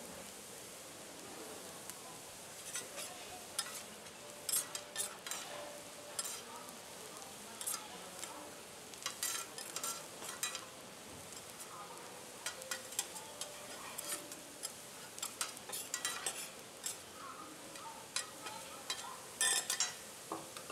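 Garlic fried rice sizzling on a teppanyaki flat-top griddle, with steel spatulas repeatedly striking and scraping the griddle surface as the rice is chopped and turned. The sizzle is a steady hiss; the spatula strokes come in quick clusters from a couple of seconds in.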